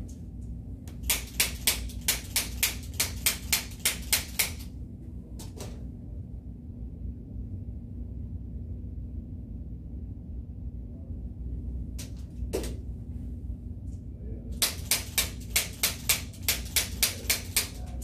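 Chiropractic activator adjusting instrument firing against the neck: two quick runs of sharp spring-loaded clicks, about a dozen in each at three to four a second. The first run starts about a second in and the second comes near the end, with a few single clicks between them.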